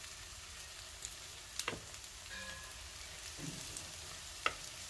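Poha-and-spinach cutlets shallow-frying in a few spoonfuls of hot oil in a pan, with a steady light sizzle. Two sharp clicks cut through it, one about a second and a half in and one near the end.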